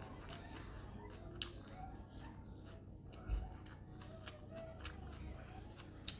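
Close-up eating sounds of crispy bánh xèo crepe wrapped with lettuce and herbs being chewed: scattered crisp clicks and crackles, with one dull bump about three seconds in.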